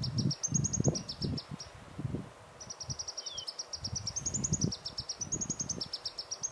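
High-pitched rapid trills, about ten pulses a second, come in repeated phrases that rise and fall a little in pitch, with a pause near the middle. Two faint short downward-sliding notes are heard, one at the start and one about halfway. Irregular low thumps sound underneath.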